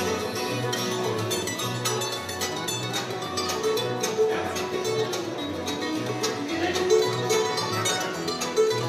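Bluegrass band playing live, with banjo, mandolin, acoustic guitars, fiddle and upright bass, in an instrumental passage without singing. The upright bass thumps out a steady pulse of notes under quick plucked strings.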